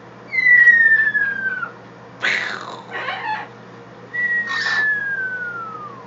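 Blue-fronted amazon parrot imitating a dropping bomb: a whistle that glides down in pitch for about a second and a half, followed by a rough, noisy burst for the blast. A second falling whistle starts about four seconds in.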